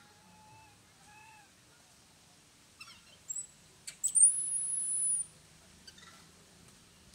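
A baby macaque crying: two soft, short coos in the first second and a half, then a long, very high-pitched whistling cry about four seconds in, the loudest sound.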